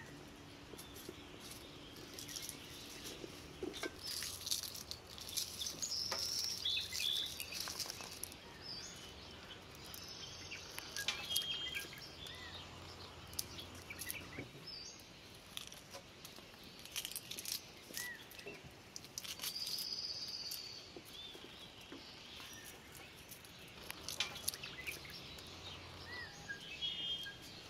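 Birds chirping now and then, over crisp clicks, snaps and rustles of hand work with a knife on onions and fresh herbs.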